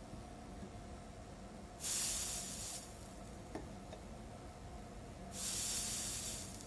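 Two short sizzles, each about a second long, as homemade lemon-juice, salt and water soldering paste boils off against the hot soldering iron tip and transistor case; the second comes as more paste is dabbed on beside the tip.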